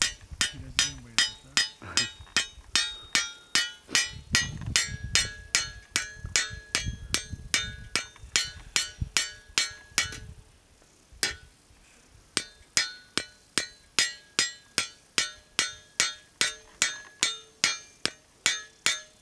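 Small hammer peening the edge of a scythe blade: steady metallic taps, about two or three a second, each with a short ring. The tapping stops for about two seconds a little past halfway, then carries on.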